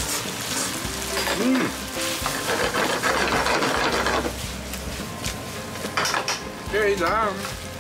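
Linguine in meat sauce sizzling in a frying pan while it is stirred and tossed with wooden chopsticks, with scattered clicks and scrapes of the chopsticks against the pan.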